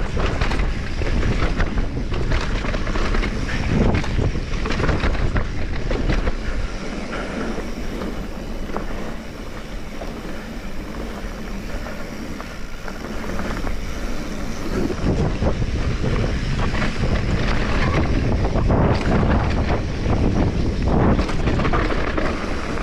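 Wind buffeting the microphone of a camera on a mountain bike ridden downhill, with the clatter and knocks of the bike over rough ground. It eases off for several seconds midway, then picks up again.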